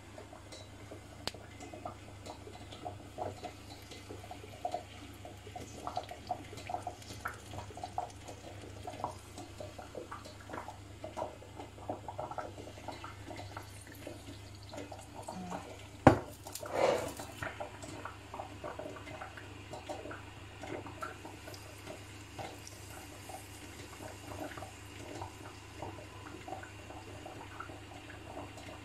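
Hot oil hissing and crackling as it is poured over sun-dried tomatoes and garlic in glass jars, with many small pops throughout. A sharp knock about halfway through.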